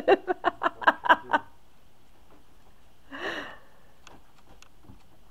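A person laughing in quick, evenly spaced bursts for about a second and a half, then one breathy laugh about three seconds in. A few faint clicks follow.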